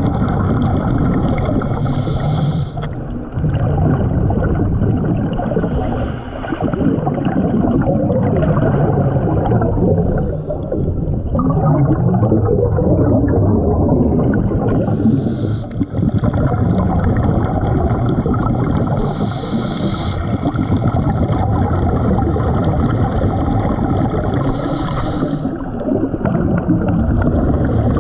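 Scuba diver breathing through a regulator underwater: the exhaled bubbles make a steady, loud gurgling rumble, and a higher hiss of inhalation comes about every four or five seconds.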